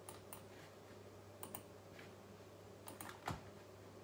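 Near silence: room tone with a low steady hum and a few faint, scattered clicks, the loudest about three seconds in.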